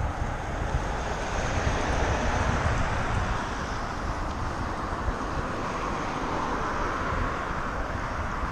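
Steady wind noise on the microphone of a camera on a moving bicycle, mixed with the tyre noise of cars and a camper van passing on the road alongside.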